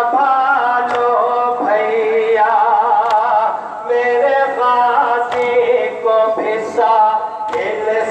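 A man sings a noha, a Shia Muharram lament, amplified through a microphone, in long held, wavering notes.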